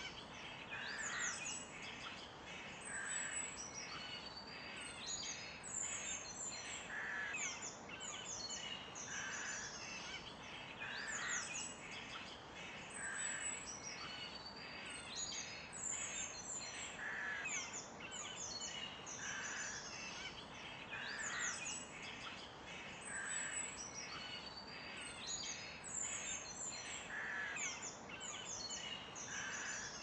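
Several birds singing together in a continuous chorus of quick high chirps and trills, with a lower call repeating about every two seconds, over a steady background hiss.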